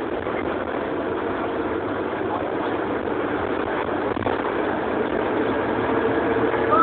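Diesel engine of a 1995 Mercedes-Benz OF-1620 bus running steadily, growing a little louder toward the end.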